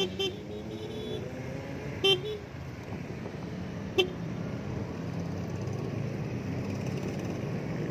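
Short vehicle horn toots over a steady motorcycle engine hum on the road: two quick beeps at the start, a longer one about two seconds in, and a brief one about four seconds in.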